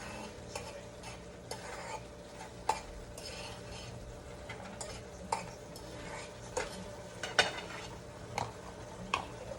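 Ground beef taco meat sizzling in a pot over high heat while a utensil stirs it, with irregular sharp clacks of the utensil against the pot, the loudest about seven seconds in.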